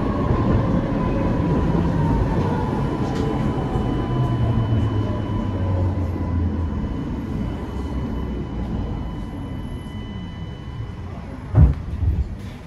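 Tatra T4D tram heard from inside the car, rumbling along and slowing, with a whine that falls in pitch as it quietens. Near the end comes a short, loud thump, followed by a smaller one.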